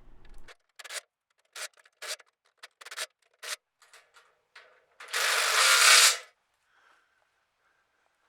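Ratchet wrench clicking in short bursts as the bolts of a sawmill's carriage retaining track are tightened, in sped-up footage. About five seconds in, a louder unbroken burst lasts about a second.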